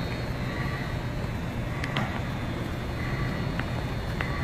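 Mexico City Metro train's undercarriage equipment running with a steady low rumble, with faint high tones coming and going and a few sharp clicks, the loudest about two seconds in.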